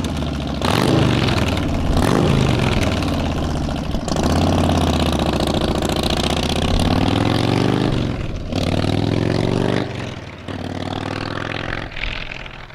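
Harley-Davidson Softail Standard's V-twin pulling away and accelerating up through several gears. The engine note rises through each gear and drops at each shift, about four times. It fades near the end as the bike rides off.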